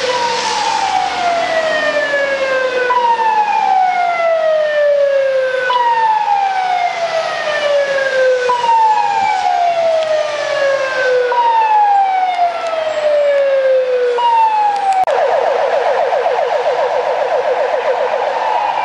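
Hungarian ambulance siren on the move: a loud tone that falls in pitch over about three seconds and repeats, then about fifteen seconds in it switches to a fast warble for a few seconds before the falling sweep returns.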